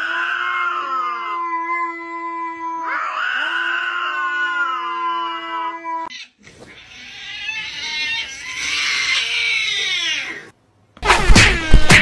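Recorded cat yowls used as meme sound clips. Two drawn-out cat calls ride over a steady background tone, then after a short gap comes a longer, rougher yowl. About a second before the end, loud music with sharp beats cuts in suddenly.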